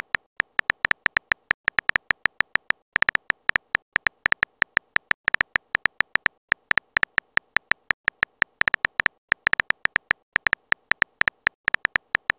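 Rapid, irregular stream of short phone-keyboard typing clicks, about five or six a second with brief gaps, as a text message is typed out letter by letter.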